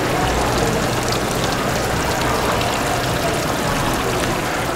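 Outdoor fountain splashing steadily, water jets spraying and falling into a tiled basin.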